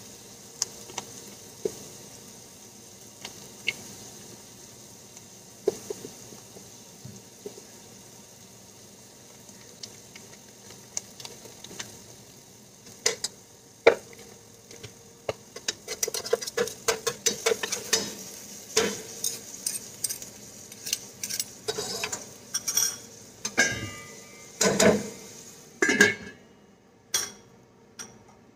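A metal spoon stirring and scraping in a stainless steel pot while the contents sizzle. At first there are only scattered clinks, but about halfway through the clinks of the spoon against the pot come thick and fast. There are a few louder knocks near the end.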